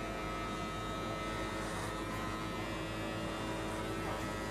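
Electric hair clipper buzzing steadily.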